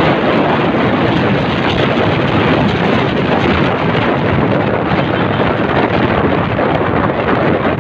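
Loud, steady wind noise buffeting the microphone of a phone carried on a moving motorcycle, covering any engine sound.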